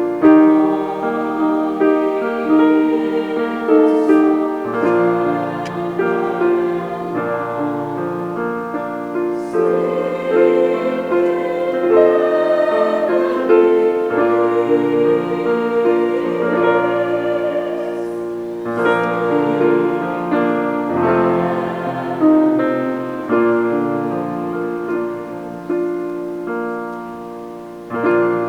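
Choir singing with piano accompaniment, held chords moving from one to the next.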